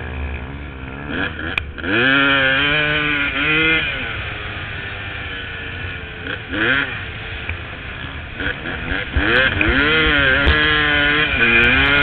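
2002 Honda CR250's single-cylinder two-stroke engine, through a Gnarly expansion chamber and Q Stealth silencer, revving hard under load. Its pitch climbs and drops back again and again with the throttle and gear changes, loudest about two seconds in and again from about nine seconds on.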